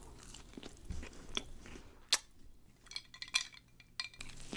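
Close-miked chewing of a cookie topped with berries and Oreo: scattered crunches and small mouth clicks, the sharpest crunch about two seconds in.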